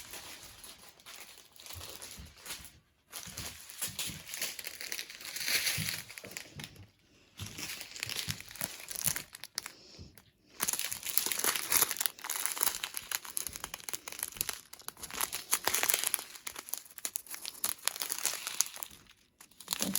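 Small plastic packets of diamond painting drills crinkling as they are handled and sorted, in irregular stretches broken by a few brief pauses.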